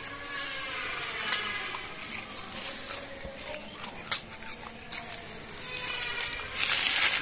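Street dogs whining and whimpering in high, wavering cries while they are fed biscuits, with scattered small clicks. A loud, brief rustling hiss comes near the end.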